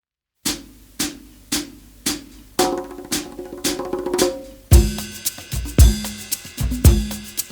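Background music: after a brief silence, a sparse percussive beat of about two hits a second builds up, then a full drum kit with bass drum, snare and cymbals comes in about two-thirds of the way through.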